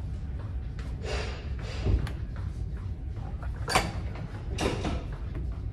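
Metal parts of a shoulder press machine clattering and creaking, four separate short knocks, over a steady low rumble.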